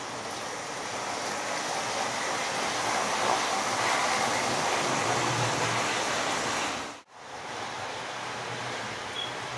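Model Class 43 HST train running on the layout track, a steady rolling and motor rumble that grows louder toward the middle. It cuts out sharply for an instant about seven seconds in, then carries on quieter.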